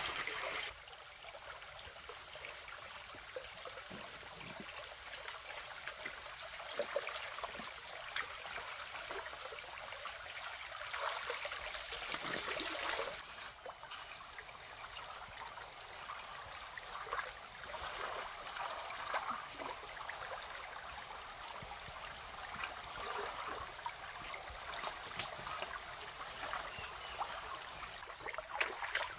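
Stream water trickling and flowing steadily, an even running-water wash with small irregular splashy flecks.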